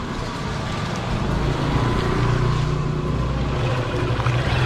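Small motorcycle engine running steadily, growing louder as it comes closer.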